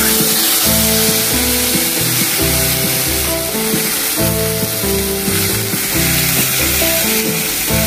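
Boiled pumpkin greens sizzling steadily in hot oil in a wok, just tipped in and being stirred, with a dense hiss. Background music with a steady beat plays underneath.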